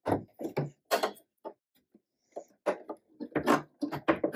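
Irregular clacks, knocks and scrapes of a graphics card being handled against a desktop PC case as it is fitted into its PCIe slot, with a brief cluster of them about every half second and a busier run near the end.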